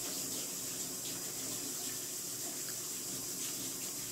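A steady, even hiss, with a few faint soft clicks from chewing pizza.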